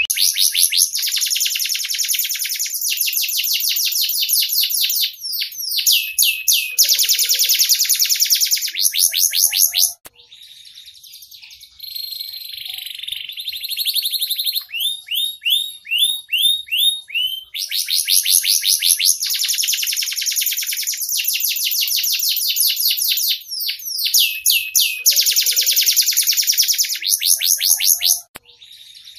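Domestic canary singing: long, fast trills and rolling runs of rapidly repeated notes, mixed with short rising and falling glides. The song breaks off briefly about ten seconds in, resumes quietly and builds again, and pauses once more near the end.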